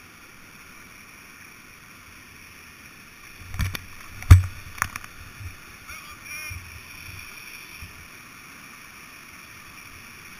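Rushing whitewater of a river waterfall, heard through a helmet-mounted GoPro's housing as a kayak runs the drop. A few sharp knocks and splashes of paddle and hull come in a cluster a few seconds in, the loudest of them about four seconds in.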